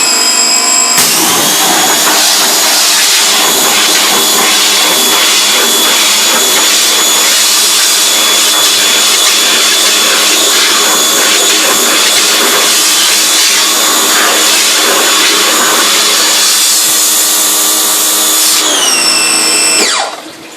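Pressure washer rinsing a screen-printing screen: the motor spins up with a rising whine, runs steadily with the hiss of the water jet on the mesh, then winds down with a falling whine near the end.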